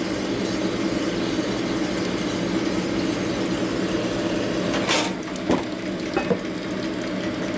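Honing machine running steadily with a low hum as the stone hone cuts a bearing bore under light pressure, with a sharp knock about five seconds in and a couple of small ticks after it.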